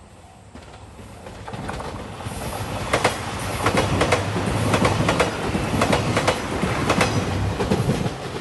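JR Shikoku 2700 series diesel railcar train passing close by: its rumble swells up, with a rapid clickety-clack of wheels over rail joints, then cuts off suddenly near the end. A level-crossing bell is heard briefly at the start.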